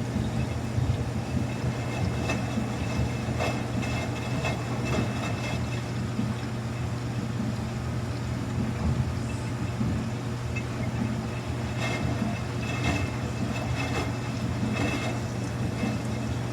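Samsung washing machine running its quick-wash cycle: a steady low motor hum with light clicks and rattles scattered through it.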